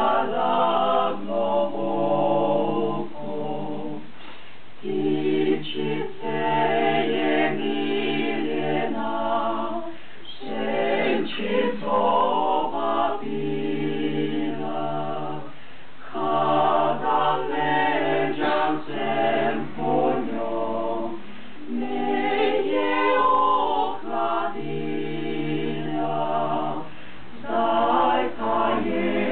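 Small mixed choir of men and women singing a cappella in parts, in held phrases a few seconds long with short breaks between them.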